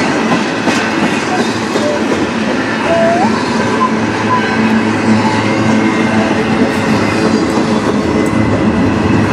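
Loaded double-stack intermodal well cars rolling past, a steady rumble and clatter of steel wheels on the rails. A short rising wheel squeal comes about three seconds in.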